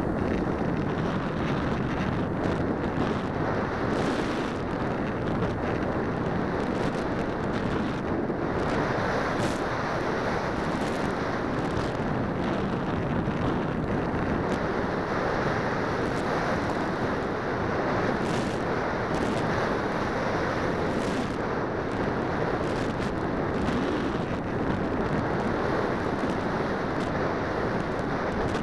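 Steady rush of airflow buffeting the microphone of a camera carried on an Alula Evo discus-launch glider in flight, a dense noise strongest in the low and middle range. There is no motor sound, since the glider is unpowered.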